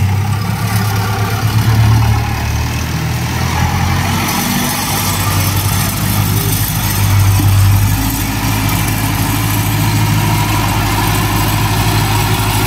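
Fiat 640 tractor's diesel engine running and revving under load while trying to move a loaded soil trailer stuck in soft ground. The engine note swells about two seconds in and again around seven seconds.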